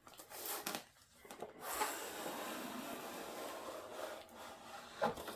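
Cardboard gift box and its packaging being handled and opened: a few short scuffs, then a steady sliding, rustling scrape for a couple of seconds, and a single knock near the end.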